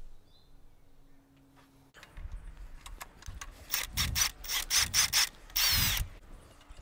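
Wrench on a long socket extension working a seized exhaust flange nut loose: after a quiet start, a run of sharp rattling strikes about halfway in, then a short continuous burst near the end.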